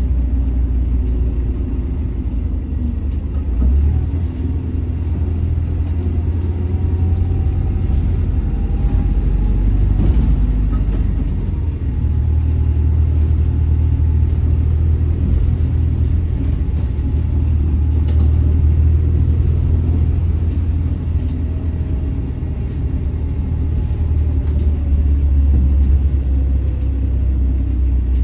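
Volvo 7900 LH diesel-electric hybrid articulated bus standing with its diesel engine running at idle: a steady low rumble that shifts a little a few times.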